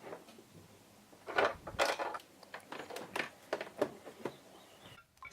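Light clicks and clatters of miniature doll dishes being handled and set down, about eight short knocks from about a second in, the first two the loudest.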